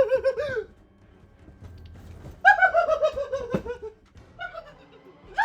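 Shrill, high-pitched cackling laughter in two bursts, one at the start and one about two and a half seconds in, each a quick string of 'ha' pulses falling in pitch.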